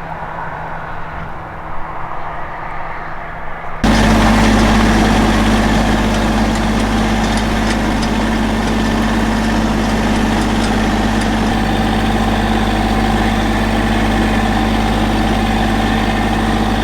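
Lawn tractor engine running at a steady speed, jumping suddenly louder about four seconds in and then holding an even drone.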